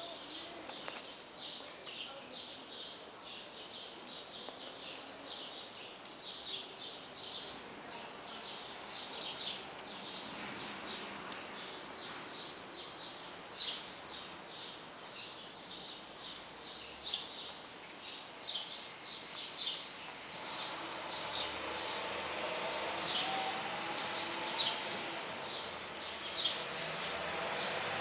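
Small birds chirping over and over, short high chirps throughout, over a steady outdoor background hiss that grows louder about two-thirds of the way in.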